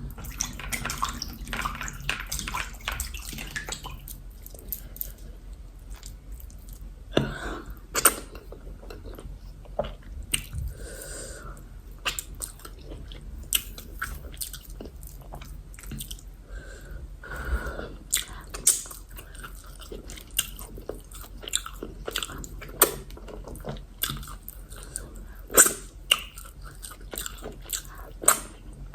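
Close-up wet chewing and mouth sounds of someone eating yam fufu and egusi soup: irregular sharp smacks and clicks, with a few short, softer sounds in between.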